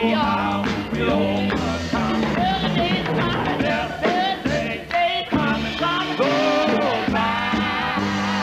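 Gospel quartet singing in harmony over instrumental accompaniment.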